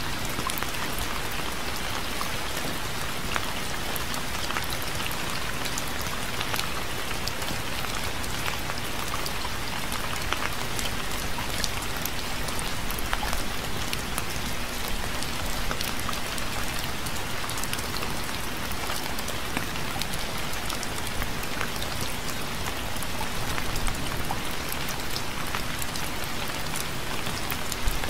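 Steady rain falling on a surface, a constant hiss with many individual drops pattering through it.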